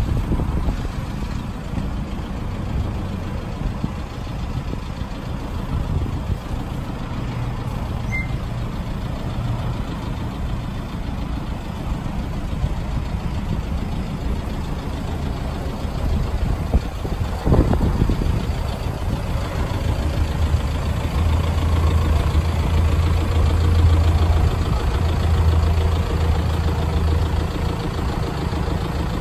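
Toyota Sport Rider's 1KD-FTV 3.0-litre four-cylinder common-rail turbo-diesel idling steadily, a low even hum, with a brief louder sweep a little past halfway.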